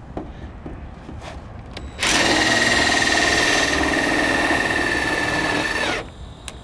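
20-volt cordless drill running steadily for about four seconds, driving a short self-drilling zip screw through an aluminium gutter screen into the top of the gutter. It starts suddenly about two seconds in and cuts off near the end.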